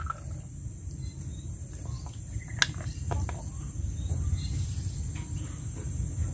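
A few sharp clicks of steamed snail shells being handled over a metal wok, the loudest about two and a half seconds in, against a steady high insect drone and a low rumble.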